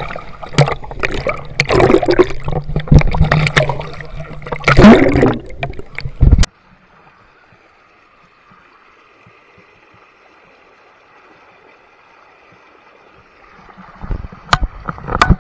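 Pool water sloshing and gurgling around an action camera held at the surface, with loud irregular splashes. About six seconds in it cuts off suddenly to a much quieter steady hiss of water running down a plastic waterslide flume. Near the end come a few sharp knocks from the camera being handled.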